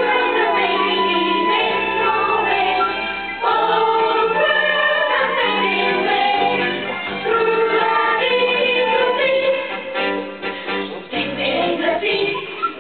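A group of voices singing a song together, fairly loud, the singing growing choppier and a little quieter near the end.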